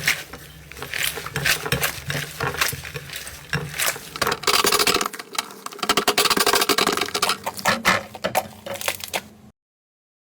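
Slime being squeezed and worked by hand, making dense irregular wet clicks and pops. The sound cuts off suddenly near the end.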